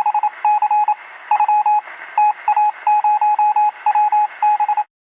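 Morse code beeps: a single steady tone keyed on and off in short and long beeps over radio-style hiss, stopping just before the end.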